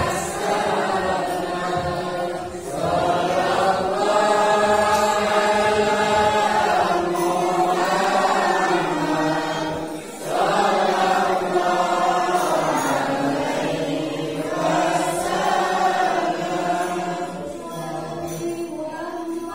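Group of children chanting a devotional Maulid recitation in unison through microphones, in long drawn-out phrases with short breath pauses about three and ten seconds in.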